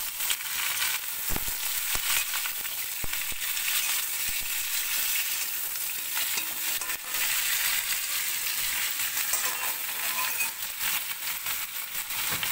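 Chopped pumpkin stems, banana-stem pith and potato sizzling steadily in hot oil in a steel kadai. A metal spatula scrapes and knocks against the pan now and then as the vegetables are stirred.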